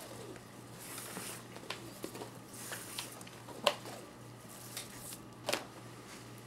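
Paracord being handled and pulled through by hand: soft rustling and swishing of the cord, with scattered light ticks and two sharper clicks past halfway and near the end. A steady low hum runs underneath.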